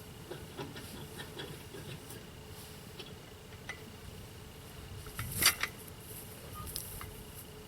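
Scattered light clicks and knocks of equipment being handled, with one louder knock about five and a half seconds in, over a faint steady hum.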